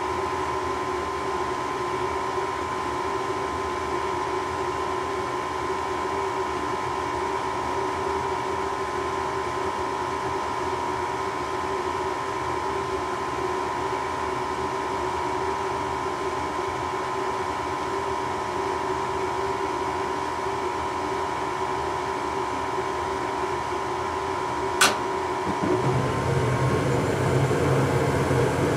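Furnace running with a steady mechanical hum and whine. Near the end there is a single sharp click, and about a second later a louder, deeper sound sets in as the burner lights.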